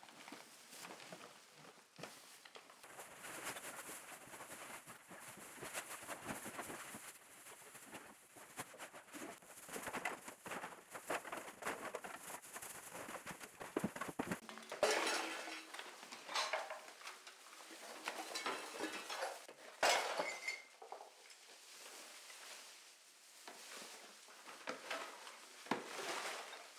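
Household rubbish being cleared by hand: plastic garbage bags rustling and crinkling, with irregular clinks and clatters of bottles and food containers being picked up and tossed. Several louder knocks come in the second half.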